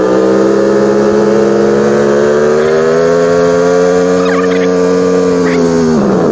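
BMW F900R's parallel-twin engine running at steady low revs, pitch creeping up slightly, then dropping about six seconds in as the bike slows.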